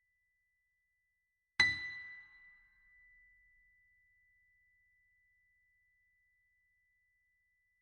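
A single struck chime rings out once about one and a half seconds in, a clear high tone fading away over two to three seconds, above a faint steady high tone like a sine wave.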